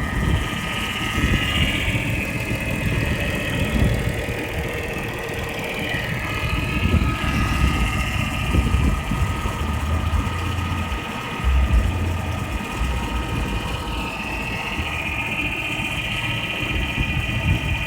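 2000 Ford Taurus 3.0 L 24-valve V6 running at idle, with a steady whine and an uneven low knocking over the engine sound. The knocking is the 'weird noise' that the uploader's tags place at a door actuator behind the passenger-side dash.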